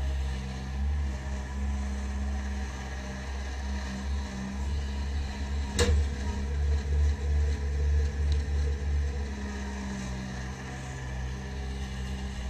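Bobcat 763 skid-steer loader's diesel engine running as it raises and tips its bucket, with one sharp bang about halfway through as the load drops into the dump truck's steel bed.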